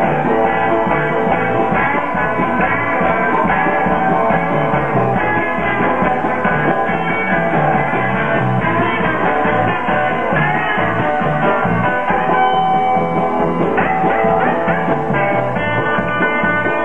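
Live rock band playing: electric guitars over a drum kit keeping a steady beat, loud and continuous.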